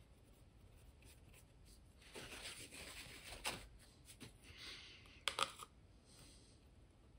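Paintbrush scrubbing wet earth-colour paint over hardened plaster scenery: faint scratchy strokes in two spells, then a couple of sharp taps just after five seconds, like the brush knocking against its paint cup.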